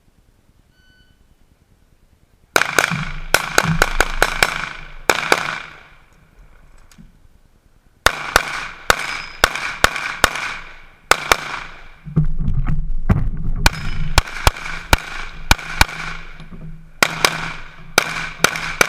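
Rapid 9 mm pistol fire from a custom Glock 17 Open-division race gun, shots coming in quick pairs and strings, starting about two and a half seconds in with a break of about two seconds partway through.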